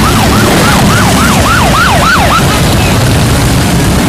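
A siren on a fast yelp, its pitch sweeping up and down about five times a second, stopping about two and a half seconds in. Underneath, the low rumble of motorcycle engines passing.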